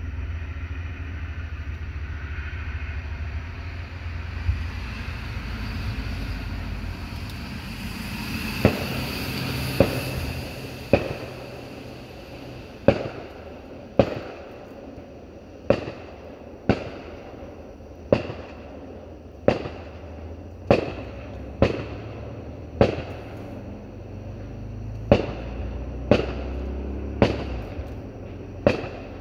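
Fireworks going off: a string of sharp bangs about once a second from about nine seconds in, each followed by a short echo. Before the bangs there is a steady low rumble with a hiss.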